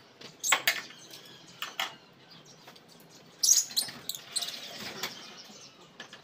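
Small caged birds chirping in short, high bursts, mixed with a few sharp clicks and knocks.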